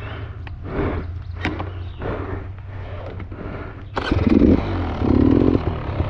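About four seconds in, a Beta Xtrainer 300 two-stroke dirt bike engine starts suddenly and is blipped. Before it starts there are softer sounds that come in a regular beat about every half second.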